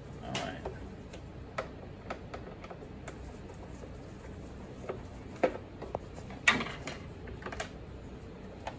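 Scattered clicks and taps of plastic parts being handled and pried loose with a screwdriver on a Bissell ProHeat 2X carpet cleaner, with two sharper knocks a little past halfway.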